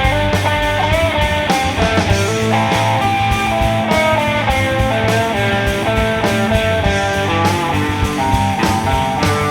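Rock band playing an instrumental passage: electric guitar lines over bass and drums, with no vocals.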